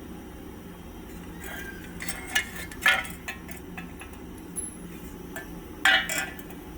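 A series of sharp metallic clinks and knocks of tools and loose parts being handled, about seven in all, the loudest near the middle and near the end, over a steady low hum.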